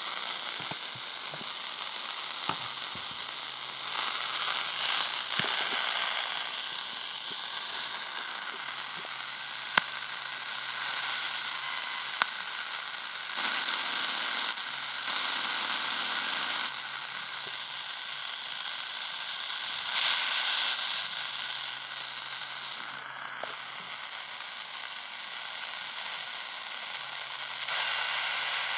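Shortwave radio receiver being tuned up through the 19-metre band, around 15.56 to 15.71 MHz, giving hissing, crackling static that swells and fades between stations. A faint steady whistle runs under it, with a low buzz that comes and goes and a few sharp clicks.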